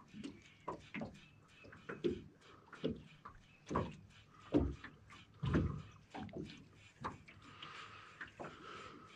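Irregular soft knocks and thumps, about one a second: handling noise from rod, reel and hull while casting and working a lure. A faint hiss comes in near the end.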